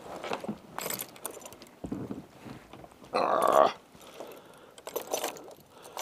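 Steel trap chain and a No. 1 coil-spring trap clinking and rattling as they are handled, in a few separate clinks. A louder burst of noise comes about three seconds in.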